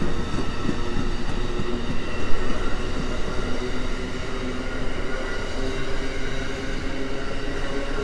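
Amtrak Superliner bilevel passenger cars rolling past on the rails, a steady rumble of wheels on track with several steady tones ringing over it and a few clicks in the first second.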